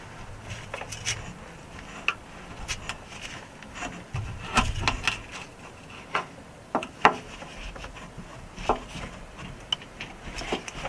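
Old handbrake cable of an Alfa Romeo MiTo being pulled and worked free by hand: irregular rubbing and scraping with scattered sharp clicks and knocks, a few louder ones about four to seven seconds in.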